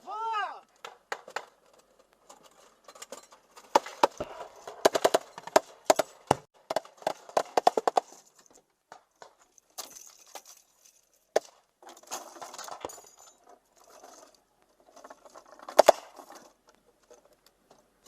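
Voices talking, mixed with scattered sharp clicks and knocks.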